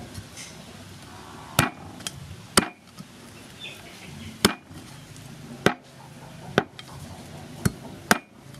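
Heavy cleaver chopping raw chicken pieces on a wooden chopping block: about seven sharp chops at uneven intervals, roughly one a second, the last two close together.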